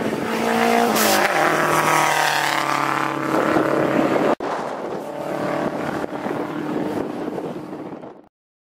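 1995 Nissan 240SX hill-climb race car's engine revving hard under acceleration, its pitch rising and stepping with gear changes. After a brief dropout about four seconds in, the engine is heard quieter and farther off, and the sound then cuts off shortly before the end.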